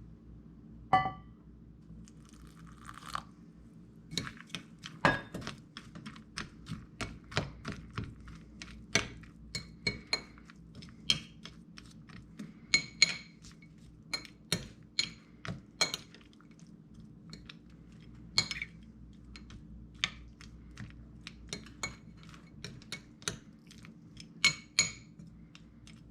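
A spoon stirring and tapping in a dish of rehydrating freeze-dried dog food, with irregular clicks and scrapes and a few ringing clinks against the bowl.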